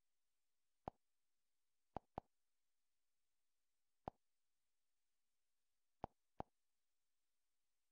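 Six short, soft clicks over near silence, from the Android TV box's menu-navigation sound, one for each remote press: single clicks about a second and four seconds in, and quick pairs about two and six seconds in.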